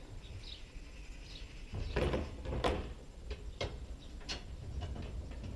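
Knocks and a short scrape as parts are slid into place and fitted on an IBC water tank's cage. The knocks start about two seconds in and come irregularly, several to a second at first, then more spaced out.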